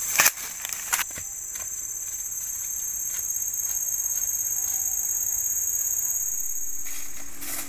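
A chorus of forest insects keeps up a steady, high-pitched shrill that pulses rapidly and cuts off about seven seconds in. A few sharp knocks or snaps sound in the first second.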